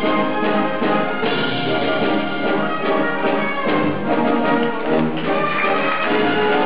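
Orchestral music with brass prominent, full and steady in level.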